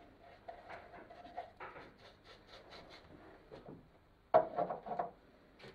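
Faint scraping and tapping of a brush stirring thinned matte medium in a small plastic tub, with a brief louder sound a little over four seconds in.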